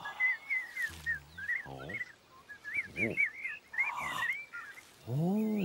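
Cartoon birdsong: a bird twittering in quick chirps, with a few short, low calls in between and a brief rising-and-falling voiced hum near the end.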